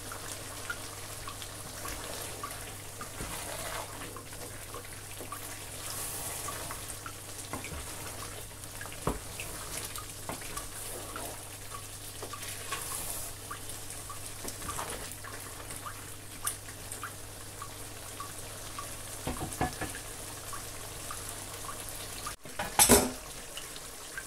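Pot of egusi soup simmering on the stove, a wet bubbling with scattered small clicks as a wooden spoon stirs it, over a low steady hum. Near the end the hum cuts off suddenly and a brief loud knock follows.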